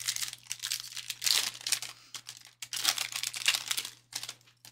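Foil wrapper of a Panini Prizm Mega box trading-card pack being torn open and crinkled by hand, in two long crackling spells with a short pause between and a few small crinkles near the end.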